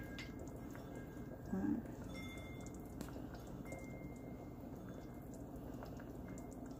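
Faint steady room noise with a few soft clicks, and a brief voiced "mm" from a woman about one and a half seconds in.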